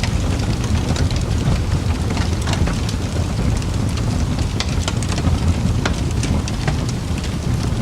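Fireplace crackling: a steady low noise of burning with irregular sharp crackles and pops scattered throughout.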